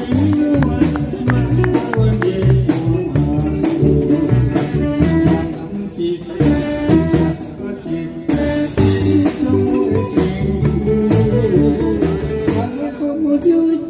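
Band music: guitar over bass with a steady drum beat.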